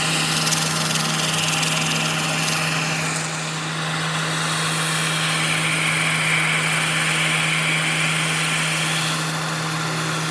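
Lathe running steadily with a constant hum, while emery cloth held against the spinning steel ball of a tie rod end gives a hiss that swells and eases as the pressure changes.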